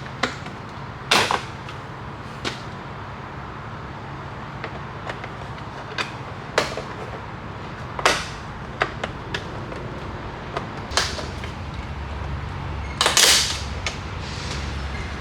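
Scattered sharp clicks, knocks and snaps of hand work on a truck's door panel and its plastic trim, about a dozen in all, the loudest about a second in and a longer snap near the end, over a steady low hum.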